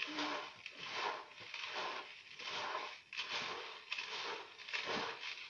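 Dry sunflower seeds and grain being poured and shaken from a bag into a bowl, a run of uneven rustling swells.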